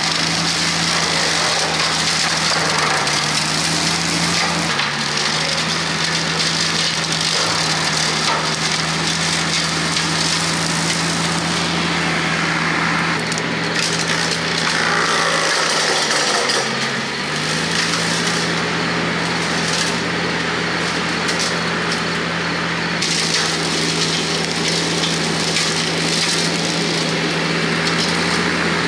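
Hardee Brush Tiger hydraulic rotary cutter chopping through brush and tree limbs, wood splintering and crackling, over the steady drone of the TYM T474 tractor's engine running the PTO-driven hydraulic pump. The engine drone dips in pitch briefly about halfway through, then recovers.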